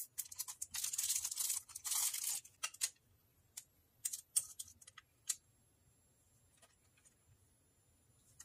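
Small clear plastic baggie crinkling and rustling as it is handled, for the first three seconds or so. Then a few light, separate clicks as small metal charms are picked up, before it goes nearly silent.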